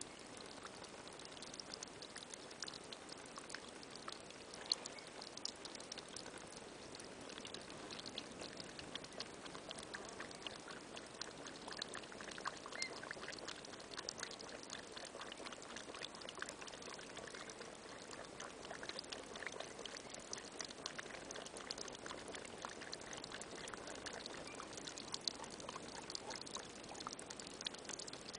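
Water trickling from an outdoor tap and splashing onto the ground, a steady run with many small drips and splashes.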